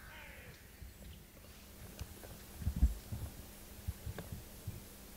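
Faint background broken by a series of dull, low thumps, irregularly spaced, starting about halfway in, the loudest coming just before three seconds.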